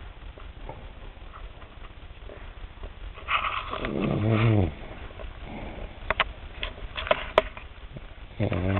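An elderly woman snoring: a loud snore about three seconds in, rough at first, then dropping in pitch, and another beginning near the end. A few sharp clicks come in between.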